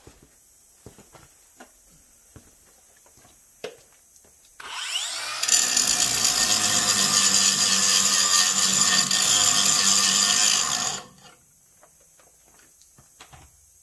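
Hypertherm Powermax 1000 plasma cutter in gouge mode, gouging out welds on the steel truck frame. It starts about four and a half seconds in and builds over a second into a loud, steady hiss with a low hum. It stops suddenly about eleven seconds in.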